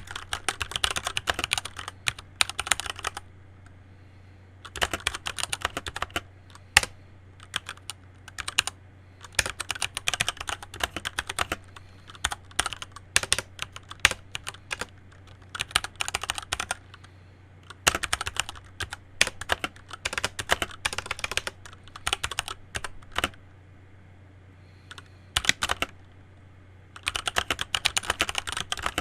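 Typing on a Keychron C1 wired mechanical keyboard: quick runs of key clicks lasting a few seconds each, with short pauses between the runs.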